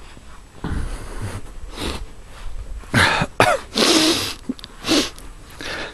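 A man coughing and clearing his throat close to the microphone, in several short bursts in the second half.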